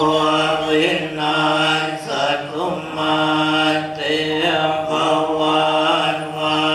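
Buddhist monks chanting: a steady, near-monotone recitation on one pitch, broken into phrases of about a second each.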